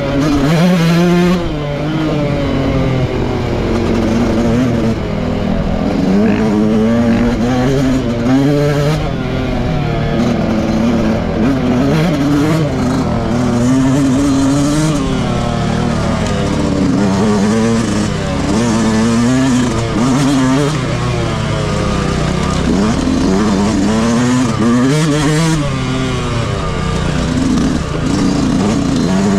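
Yamaha YZ125 two-stroke motocross engine with its stock exhaust, ridden hard; its pitch rises and falls constantly as the throttle is opened and shut.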